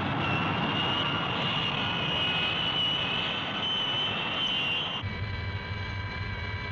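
Jet fighter engine sound effect: a loud, steady rush with a high whine as the jet lifts off. About five seconds in it cuts abruptly to a cockpit hum, a low pulsing drone under several steady high tones.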